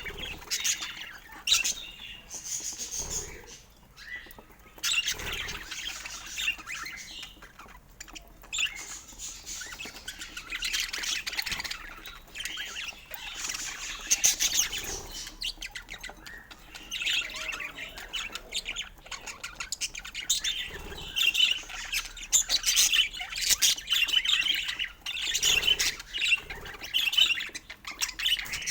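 Budgerigars chirping: many quick high calls, rising and falling in loudness, with brief lulls about four and eight seconds in.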